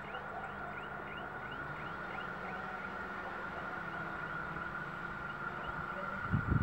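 Distant approaching electric train, heard as a faint steady high whine, while a bird repeats a short chirp a few times a second that fades out after a few seconds. Near the end, wind starts buffeting the microphone with loud low rumbling.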